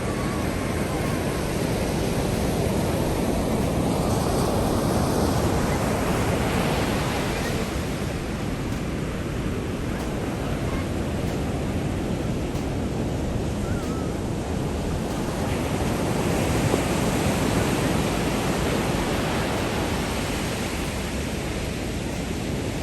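Rough sea surf: waves breaking onto the shore in a continuous wash of noise that swells about four seconds in and again around sixteen seconds in as bigger waves come through.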